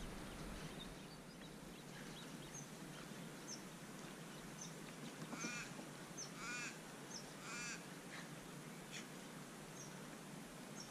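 Birds calling over a faint steady background: three calls about a second apart in the middle, among scattered short high chirps.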